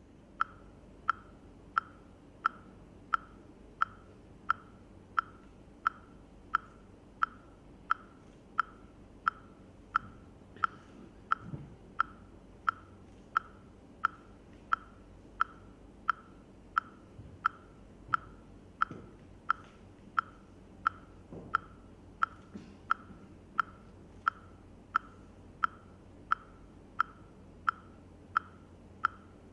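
A steady metronome-like tick beat, one short ringing click about every two-thirds of a second, keeping an even tempo.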